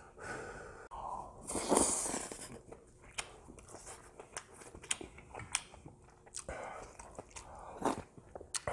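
Close-miked chewing of a mouthful of fried rice, with sharp wet mouth clicks and smacks. A loud breathy noise comes about two seconds in and a shorter one near the end.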